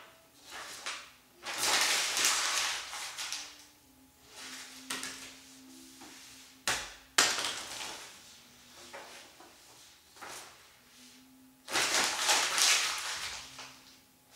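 Hands moving over a tabletop: several rustling, rubbing bursts lasting a second or two each, and a sharp knock about seven seconds in.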